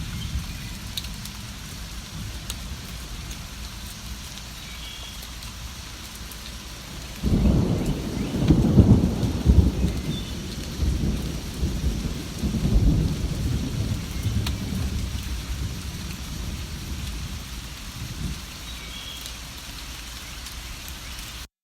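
Steady rain falling, with a roll of thunder that breaks in suddenly about seven seconds in, rumbles on for several seconds and fades away. Faint bird chirps come through now and then, and the sound cuts off just before the end.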